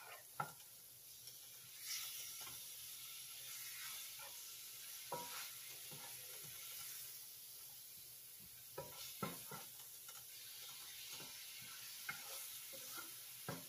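Swiss chard sizzling faintly as it wilts in a nonstick skillet, stirred with a spatula that scrapes and taps against the pan now and then.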